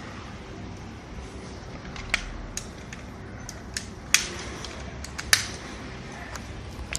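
Hunting trail camera's plastic housing handled and latched, giving a series of sharp clicks and snaps, about seven in all, the loudest two about four and five seconds in.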